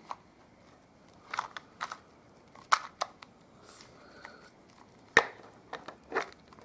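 Plastic 2x2 Rubik's cube being turned by hand: a string of separate short plastic clacks as the layers are twisted, irregularly spaced, the loudest about five seconds in.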